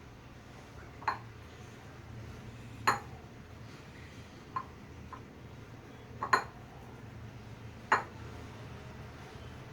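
A spoon clinking against a mixing bowl while potato pancake batter is stirred: a handful of sharp, irregular clinks, the loudest about three and six seconds in, over a faint low hum.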